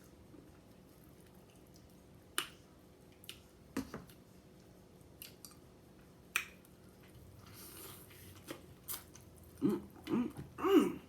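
Mouth sounds of a person eating: quiet chewing with a few sharp wet clicks and lip smacks spaced seconds apart, then a few short hummed voice sounds from the eater near the end.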